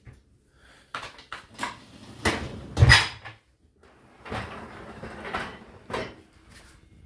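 Dishes and racks of a Whirlpool dishwasher being rearranged by hand: a string of clatters, knocks and rattles with short pauses between them, the loudest knock about three seconds in.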